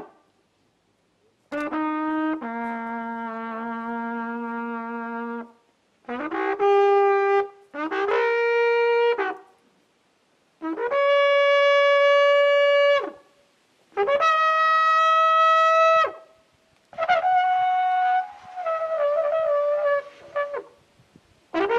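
Slow solo melody of long, steady held notes, set out in about six short phrases of one to three notes with brief silences between.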